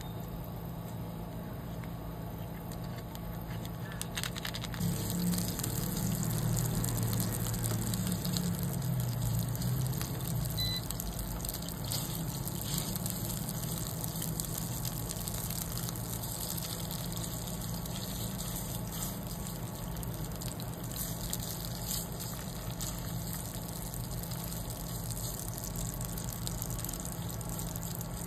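Red curry paste frying in hot oil in a nonstick pan, a steady sizzle with scattered crackles that grows louder about five seconds in.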